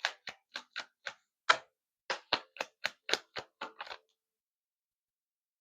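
A deck of tarot cards being handled and shuffled: a run of sharp card clicks and snaps, irregularly spaced, that stop about four seconds in.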